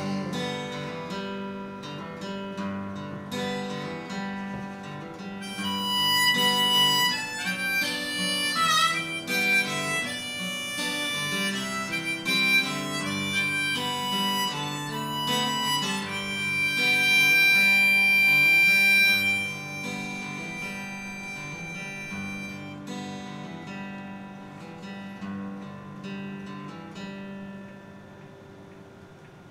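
Harmonica and acoustic guitar playing an instrumental passage. The guitar chords run throughout. The harmonica comes in about six seconds in, holds one long loud note just before twenty seconds in, and drops out a few seconds later. The guitar then goes on alone and fades out as the song ends.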